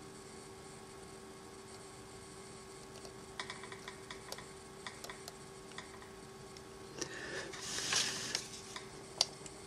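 Small clicks and rustling of hands working a thin wire connection to a model-train decoder, with a louder rustle near the end and a sharp click just after. A steady electrical hum runs underneath.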